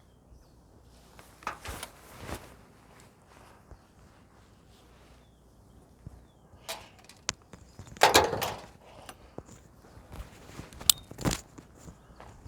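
Footsteps on a dirt walking track: scattered scuffs and crunches at irregular intervals, the loudest cluster about eight seconds in.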